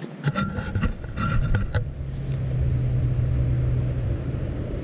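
Knocks and rattles of the camera being handled during the first two seconds. A low rumble runs underneath, and a steady low hum holds after that.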